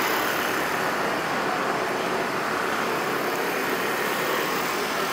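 Steady city road traffic noise, with a city bus running as it draws up to the curb at a bus stop.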